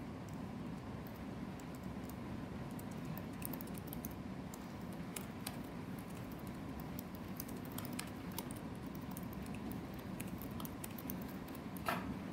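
Whiteboard eraser wiping across the board in short strokes: faint rubbing and scattered small clicks over a steady low room hum.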